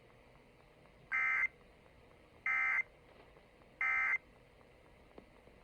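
Emergency Alert System end-of-message (EOM) data bursts played over a radio: three short, identical buzzy bursts about 1.3 seconds apart, the digital code that closes the test alert.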